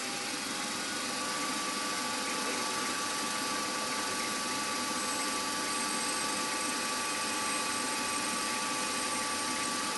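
Small milling machine's spindle running at a steady speed with a 2.5 mm twist drill feeding into a metal carburettor body, drilling a 7 mm deep M3 tapping hole. The machine's hum is even throughout, and a faint high tone joins about halfway through.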